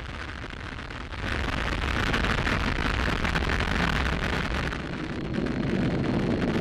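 Falcon 9 rocket's nine Merlin first-stage engines heard during ascent just after liftoff: a steady, crackling rush of noise that grows louder about a second in.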